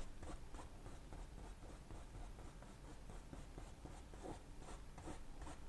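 Paintbrush working oil paint onto a canvas: faint, uneven scratchy strokes.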